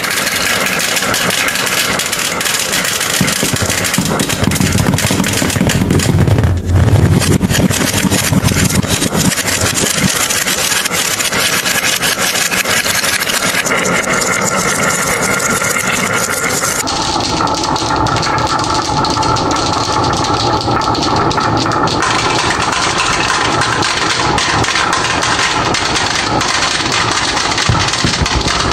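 Dozens of glass marbles rolling down a wooden zigzag slope, clicking against each other and the wood and dropping into a toy truck's bed in a dense, continuous clatter.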